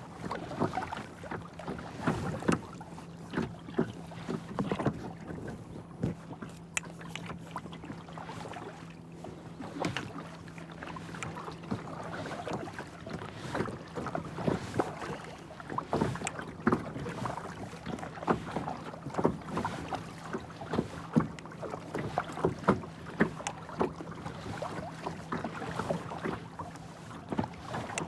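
Kayak paddle strokes on calm, smooth water: repeated dips and splashes with dripping between them, about one every second or two, over a faint steady low hum.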